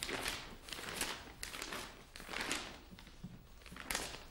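Sheets of paper rustling as pages of a case file are leafed through, several quick rustles one after another.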